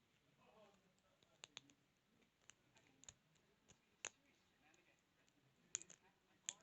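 Faint, irregular small clicks of a lock pick and tension wrench working the pins inside a 32mm padlock, spaced unevenly with a quick cluster of clicks near the end.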